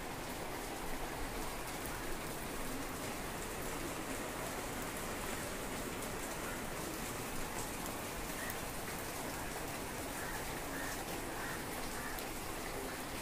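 Steady, even hiss like falling rain, with a few faint short calls near the end.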